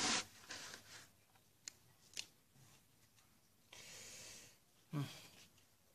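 Faint rustling and scraping of hands working loose potting soil in plastic nursery pots, with two light clicks and a longer scrape about four seconds in. A short low voice sound comes near the end.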